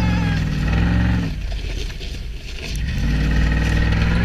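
Vehicle engine revving: the revs rise and fall off about a second in, then build up again a little before the end and hold.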